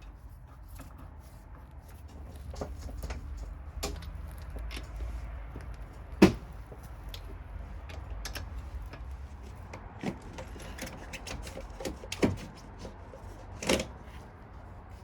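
Scattered clicks and knocks of hand tools and parts being handled during work under a car's hood, with three louder sharp knocks about six, twelve and fourteen seconds in, over a low steady rumble.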